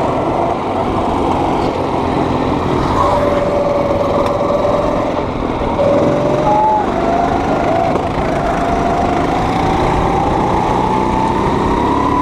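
Go-kart's small engine running under the driver, its pitch climbing slowly through the second half as the kart speeds up, over a steady noisy rush.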